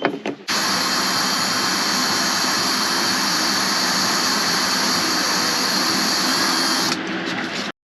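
Power drill running steadily for about six seconds, spinning the threaded mandrel of a rivet nut tool back out of a freshly set plusnut, with a few clicks near the end before the sound cuts off abruptly.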